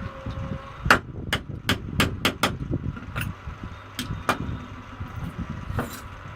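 Repair work on a semi-automatic box strapping machine: a quick run of sharp taps and knocks, about nine in the space of three seconds, over a low rumble, as parts and tools are handled.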